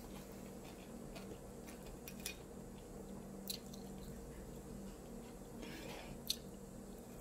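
A person quietly chewing a mouthful of egg roll, with a few small wet mouth clicks, over a faint steady hum.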